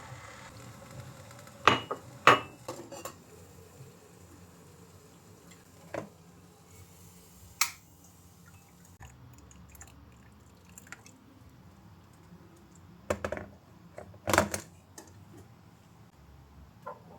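Household objects being handled, with a handful of separate sharp clinks and knocks, the loudest pair about two seconds in and another pair near the end.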